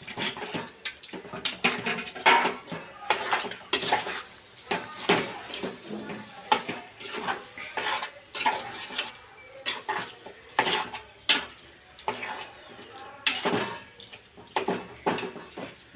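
A ladle stirring chicken curry in a kadai, knocking and scraping against the pan in many quick, irregular clacks, as the gongura paste is mixed in.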